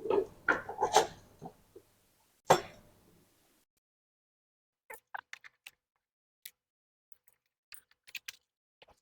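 Plastic knocks and clicks of printer cover parts being handled and fitted back on: a few sharp knocks in the first three seconds, then faint scattered small clicks.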